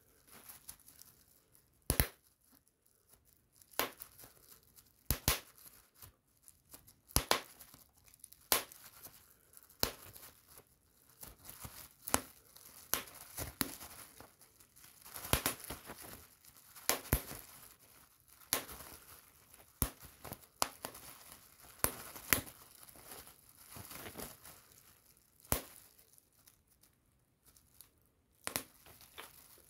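Bubble wrap being popped with the fingers: sharp single pops at irregular intervals, about one every second or two and sometimes two close together, with the plastic sheet crinkling between pops.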